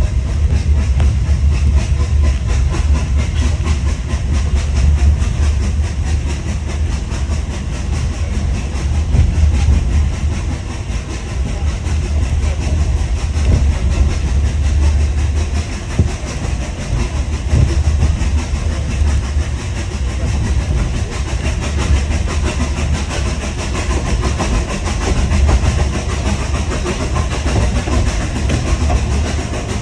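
Hunslet narrow-gauge saddle-tank steam locomotive running, heard from its footplate: a steady low rumble with the rattle and clatter of the engine and wheels on the rails.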